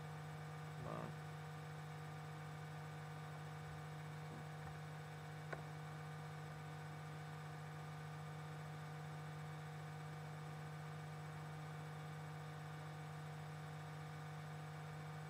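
Steady electrical hum made of several fixed tones, with a brief faint sound about a second in and a small click about five and a half seconds in.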